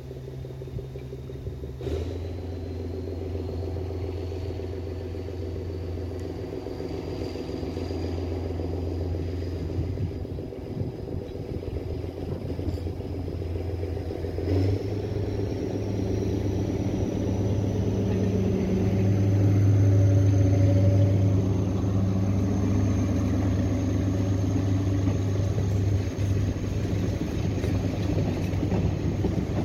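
Diesel railcars of a heritage train approaching and passing: a steady engine drone that grows louder, loudest about two-thirds of the way in, its note shifting suddenly twice, with a faint high whine rising slowly throughout. The coaches rumble by near the end.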